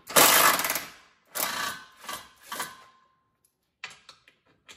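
Cordless impact driver undoing the bolts of a car's rear bumper reinforcing bar: one long burst of rapid hammering impacts, then three shorter bursts, stopping about three seconds in.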